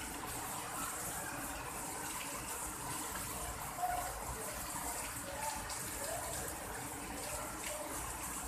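Heavy rain pouring steadily, splashing on a wet ledge and on leaves, with one brief louder tap a little before four seconds in.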